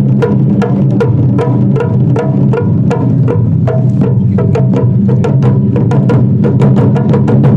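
Japanese taiko drums played by an ensemble in a fast, driving rhythm of about five strikes a second, with sharp stick hits over a deep ringing drum tone.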